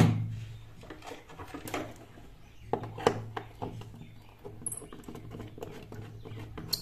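Scattered small clicks and taps of a handheld torch being handled and turned over, with a low steady hum underneath.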